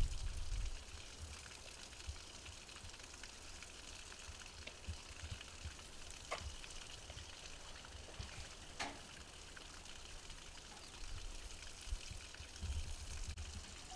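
Faint, steady outdoor hiss with an uneven low rumble underneath, and two brief faint calls or clicks, one about six seconds in and one about nine seconds in.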